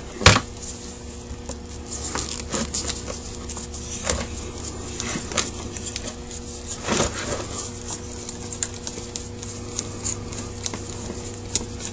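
Screwdriver working a screw out of a Carter WA-1 carburetor body, with scattered small metal clicks and scrapes of the tool and parts, over a steady low hum.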